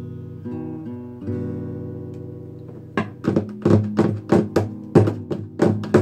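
Steel-string acoustic guitar: a chord rings out and slowly fades, then about three seconds in the player starts strumming sharply and rhythmically, about four strums a second.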